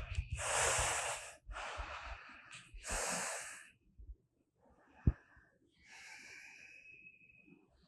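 A person breathing hard after 30 counted rounds of Kandharasana (bridge pose): three long, hissing breaths in the first four seconds, then a single click about five seconds in.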